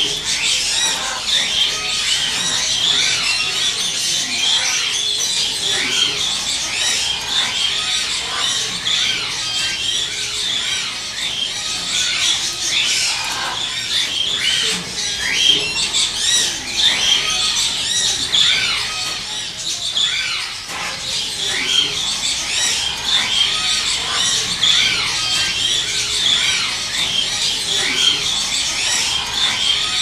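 Many parrots in shop enclosures chirping and squawking at once, a dense chorus of short overlapping calls with no pause.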